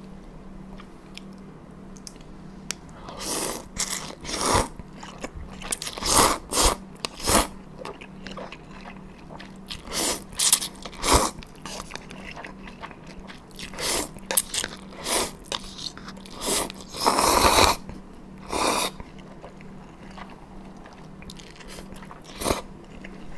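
Close-miked eating of cold buckwheat noodles dipped in sauce: a series of loud slurps and chewing, with one longer slurp about seventeen seconds in.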